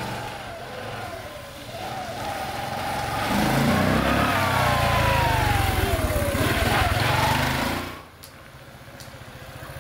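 Small 50 cc motorbike engine running as the bike is ridden up close, getting louder with a whine that falls in pitch, then running more quietly from about eight seconds in.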